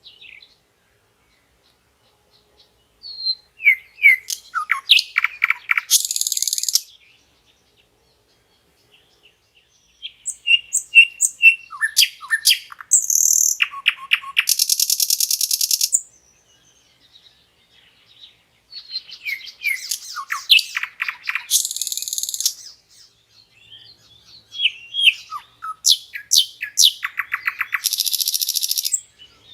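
Nightingale singing three song phrases of rapid repeated notes, whistles and fast trills, separated by pauses of a few seconds.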